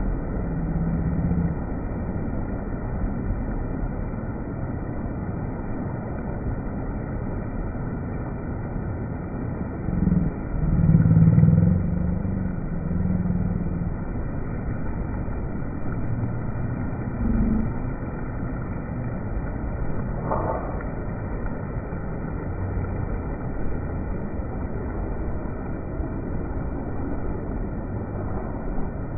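Sea waves washing in a steady low rumble, with one louder surge about a third of the way in.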